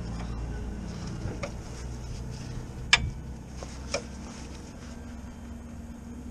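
A few sharp metallic clicks and taps from hands and tools working on the underside of a car, the two clearest about a second apart near the middle, over a steady low hum.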